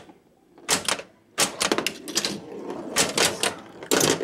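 Bally Medusa pinball machine in play with no sound from its soundboard: flippers and solenoid coils clacking in irregular bursts, starting with a single clack under a second in after a short lull.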